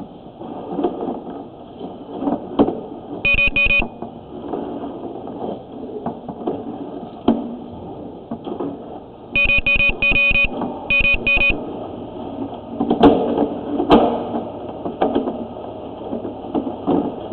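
Short bursts of rapid, high-pitched electronic beeping, three times, over scattered knocks and clatter.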